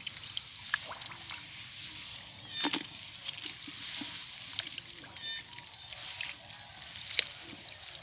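Hands groping and sloshing through shallow muddy rice-paddy water to catch fish, with a couple of sharper splashes.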